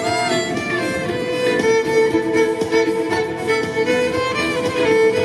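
Violin playing a melody, amplified through a loudspeaker on a stand, over a steady sustained accompaniment.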